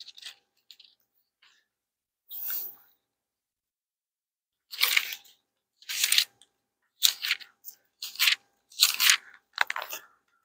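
Pages of a Bible being turned to find a passage: a short papery rustle about two and a half seconds in, then a quick run of about six rustles through the second half.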